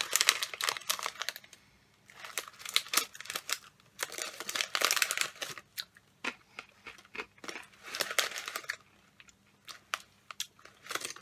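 Snack packet of Bombay mix crinkling and rustling in bursts as it is handled and opened, followed by sparser crunching as the dry fried flour noodles and peanuts are chewed.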